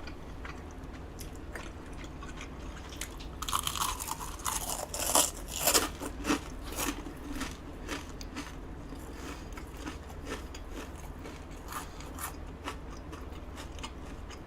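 Close-miked crunching bites into crispy Korean deep-fried batter (twigim). A burst of loud crunches comes about four to six seconds in, followed by quieter chewing with scattered small crunches.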